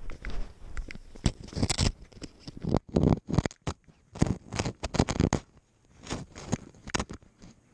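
Snow crunching and scraping close to a GoPro worn by a cat, as the cat steps and pushes its head through the snow. The crunches come irregularly, in quick clusters with short pauses between.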